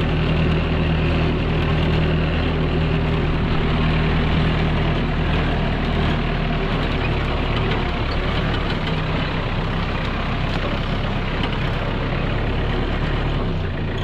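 Compact farm tractor engine running steadily while the tractor drives, heard from the driver's seat.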